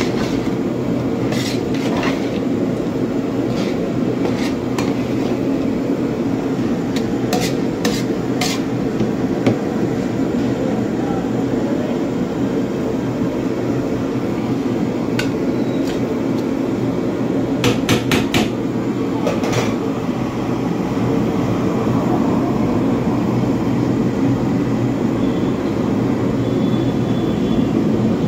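A metal spoon clanking against a large aluminium pot of chickpea curry as it is stirred, in scattered clusters of sharp knocks, over a steady low rumble.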